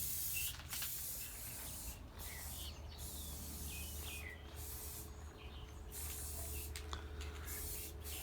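Aerosol spray can of clear coat hissing in a run of spray passes, cut by several short pauses between bursts.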